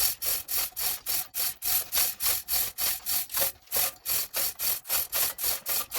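Steel zero-turn mower deck dragged across sandy ground in quick short tugs, a rhythmic gritty scraping about four to five times a second.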